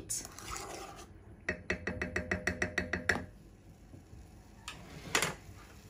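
A quick run of mechanical ratcheting clicks, about eight a second for under two seconds, typical of a stove's heat control being turned to set the burner. A single knock follows near the end.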